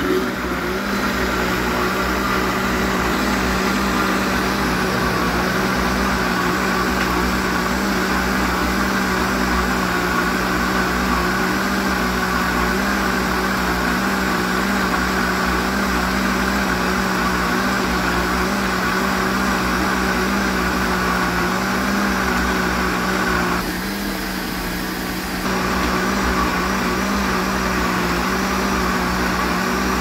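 Red Britânia electric blender running steadily, its motor blending a pale, creamy mixture in the plastic jar. The sound drops a little for a couple of seconds past the two-thirds mark, then returns to the same level.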